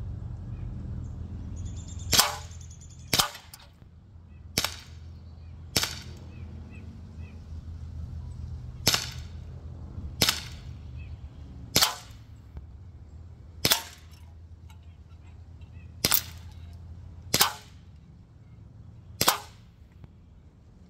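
CO2-powered Umarex Glock 17 Gen3 blowback BB pistol firing eleven single shots, sharp cracks spaced irregularly one to three seconds apart. A steady low rumble runs underneath.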